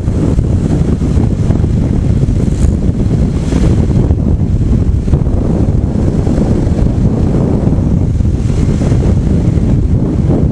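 Steady, loud wind rushing over the microphone of a motorcycle-mounted camera riding at about 70 km/h.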